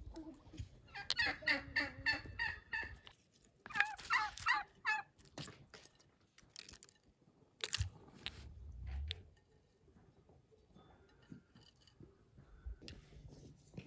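Domestic fowl calling in two bouts of rapid, warbling calls within the first five seconds. A few light knocks follow later.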